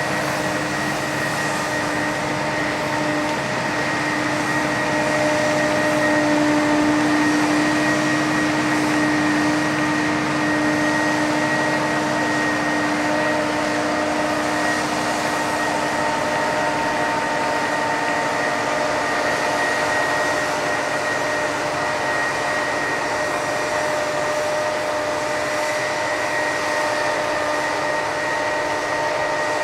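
Steady machine noise with a constant whine over it, holding level without a break.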